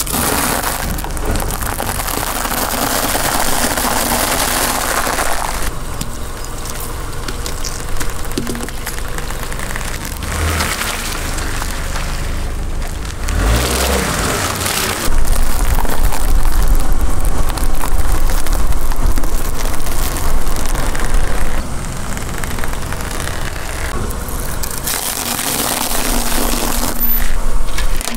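A car tyre rolls slowly over a series of objects on asphalt and crushes them one after another, with the car's engine running low. Near the start it crunches through blocks of dried instant noodles. A louder stretch of low engine and tyre rumble comes about halfway through.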